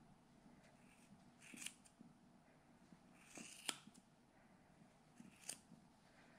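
Faint, short snips of small grooming scissors cutting through angora rabbit wool: three quick cuts a couple of seconds apart, the loudest a little past halfway.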